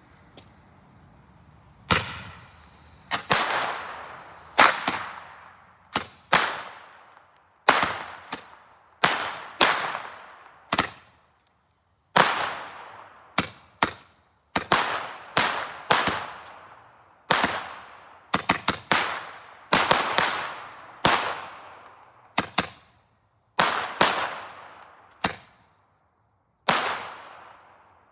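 Firecrackers going off inside a toy washing machine: about two dozen sharp bangs at irregular intervals, some in quick pairs, each trailing off in a short fading hiss.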